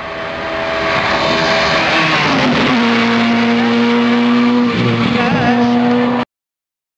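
Rally car approaching, its engine getting steadily louder; about two and a half seconds in the revs drop, then hold at a steady note. A brief wavering squeal comes near the end, and the sound cuts off abruptly.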